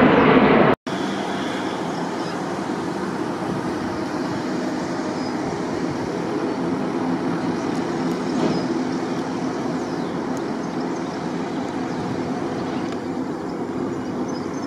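Jet engine roar from the Airbus A220-300's Pratt & Whitney PW1500G geared turbofans flying a display. The loud roar of the close pass cuts off abruptly under a second in. It then comes back quieter and steady.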